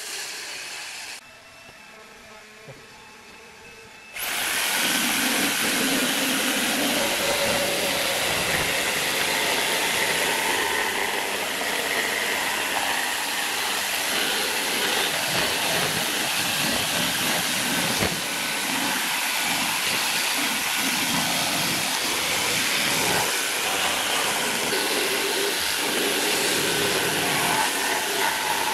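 Electric jigsaw sawing through plywood, switching on about four seconds in and then running steadily through the cut.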